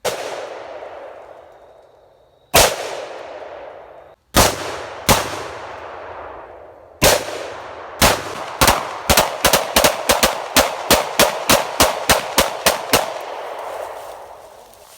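Gunfire: several single shots spaced a second or more apart, then a rapid string of about sixteen shots at roughly three a second, each followed by a long echo.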